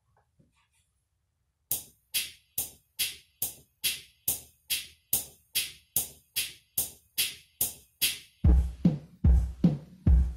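Yamaha keyboard's drum voices played as a tick-tock clock: after a brief silence, steady sharp ticks come about two and a half a second. Near the end a deep bass drum joins on every other tick.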